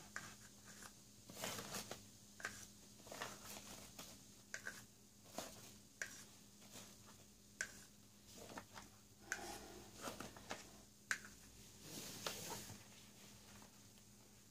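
Faint, scattered scrapes and light clicks of a plastic spoon scraping thick acrylic paint in a small cup and dragging over a paint-covered tabletop.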